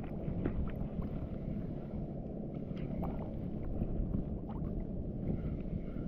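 Steady rumble of wind and choppy water lapping close by, with a few faint clicks.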